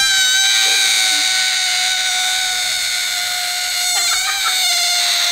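Air squealing out through the stretched, pinched neck of an inflated rubber balloon: one long high-pitched whine that slowly sinks in pitch, with a brief wobble about four seconds in.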